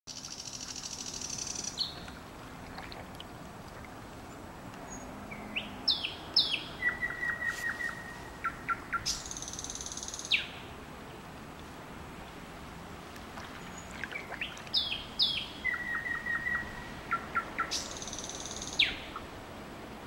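A songbird singing at night. After a short buzzy note at the start, it gives the same varied phrase twice with a pause between. Each phrase runs about five seconds: rising whistled notes, a rapid trill, then a loud buzzy ending.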